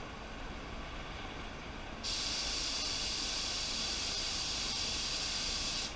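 ANI R160 HVLP gravity-feed spray gun with a 1.2 mm tip spraying: a steady hiss of atomizing air and paint that starts abruptly about two seconds in when the trigger is pulled, and cuts off suddenly near the end. Before it, only a low, even background rumble.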